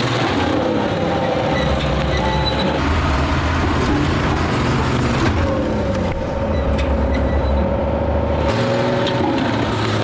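A road roller's diesel engine runs heavily and steadily as its steel drum rolls over and crushes a Honda Activa scooter.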